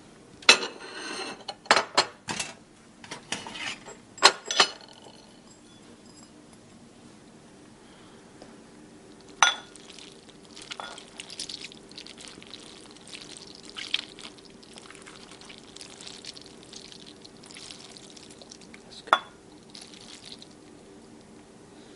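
A wooden spoon knocking and scraping against a saucepan and a bowl as macaroni and cheese is dished up, with sharp clinks, several in the first few seconds and single ones about midway and near the end. A faint steady hum runs underneath.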